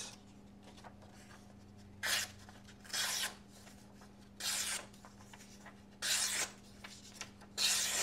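Sharp TRM Atlas folding knife slicing through sheets of printer paper: five quick slicing cuts, each a short papery hiss, spaced about a second and a half apart, the first about two seconds in.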